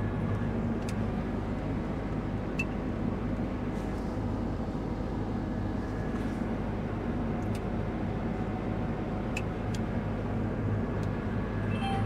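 Combine harvester running steadily under harvest load: an even engine and machinery drone with a few faint ticks.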